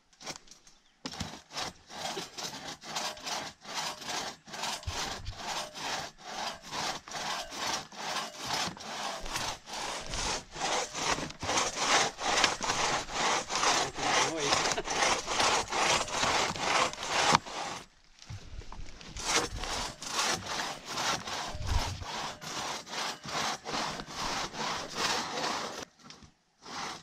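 Crosscut saw bucking through a large downed log, with steady back-and-forth strokes of steel teeth rasping through the wood. The strokes pause briefly about two-thirds of the way through and again near the end.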